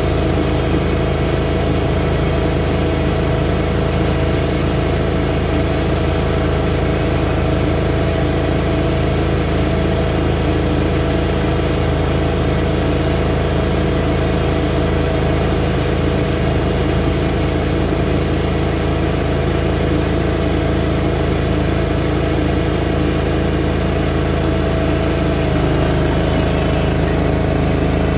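Greens mower engine running steadily at a constant speed while mowing a putting green.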